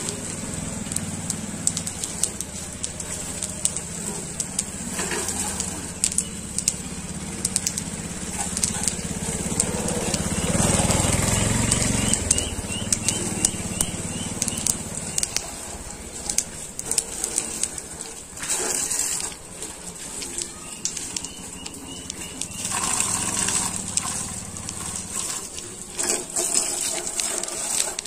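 Water jet from a hose spraying over tractors, a steady crackling spatter and hiss of water striking the metal bodywork and wet ground. A low steady hum runs under it for the first half and fades out about halfway through.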